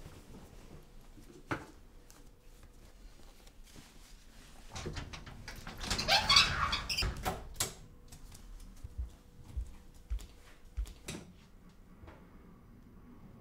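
A mirrored sliding closet door being slid along its track, a scraping sound lasting about a second about halfway through, followed by several soft thumps.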